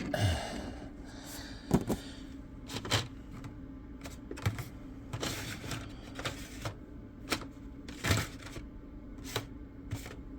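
Irregular clicks, taps and brief rustles from small objects being handled: a diecast toy car and its cardboard-and-plastic card packaging being moved about on a table. A faint steady hum runs underneath.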